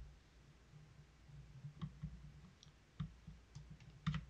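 A few faint, scattered clicks from a computer mouse and keyboard keys, two close together near the end.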